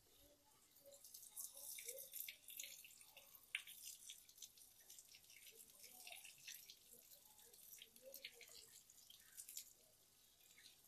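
Faint, irregular dripping and small crackling ticks: sprayed engine degreaser foam fizzing and dripping as it works.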